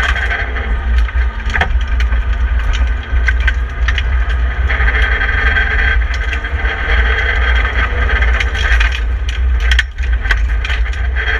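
BMW 318i (E30) rally car's four-cylinder engine working hard at speed on a gravel stage, heard inside the stripped cabin over a heavy low rumble, with many sharp ticks and clicks from gravel striking the car. The engine note dips briefly near the end at a gear change.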